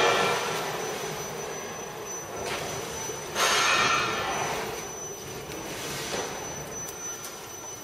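FQ1600C paper slitter and rewinder running, a steady mechanical noise from its rollers and rewind shafts with a high whine. The noise swells louder about three and a half seconds in.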